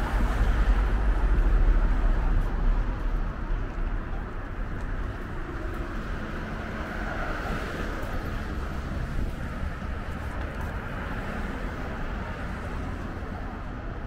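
Road traffic going by, louder in the first few seconds as a vehicle passes close, then a steadier traffic hum.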